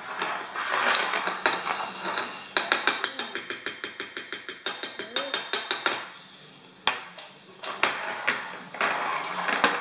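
Metal spoon clinking and scraping against a glass baby-food jar: a fast, even run of clinks, about six a second, for some three seconds, then a few separate clinks.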